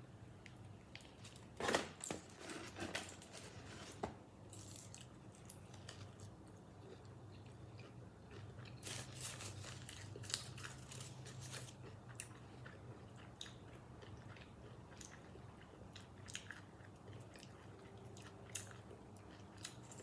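A person biting into and chewing Dave's hot chicken (fried chicken), with scattered crunches and wet smacks. The loudest bite comes about two seconds in.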